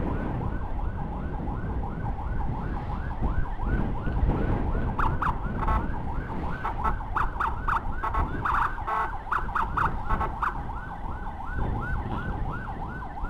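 Electronic emergency siren in a fast yelp, rising and falling about three times a second. A second, choppier siren pattern overlaps it between about 5 and 10 seconds in, over a steady low rumble of road and wind noise.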